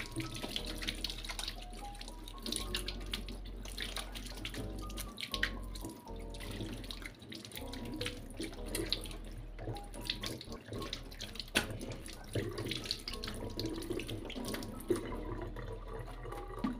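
Kitchen tap running at a sink while hands are washed with dish soap, with splashes of water throughout. Background music plays underneath.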